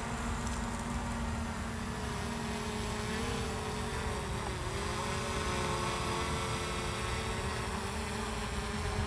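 DJI Mavic Air 2 quadcopter's propellers whining steadily as it climbs, the pitch wavering about three to five seconds in, with wind rumbling on the microphone.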